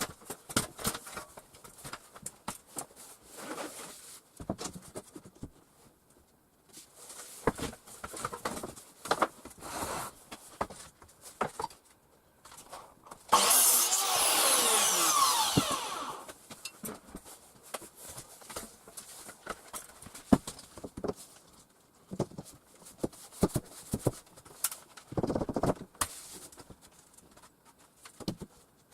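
A power saw runs loudly for about three seconds midway, its pitch falling as it cuts, amid scattered knocks and clicks of carpentry work on wooden lining boards.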